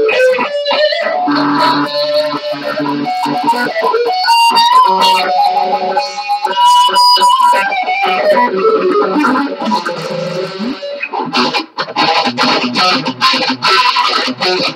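Electric guitar played solo. Single notes are slid, bent and held for a second or so, then a quicker choppy picked passage follows in the last few seconds.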